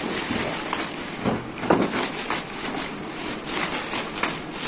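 Crinkling and rustling of cellophane and metallic foil gift wrap being handled and shaken, a run of irregular crackles.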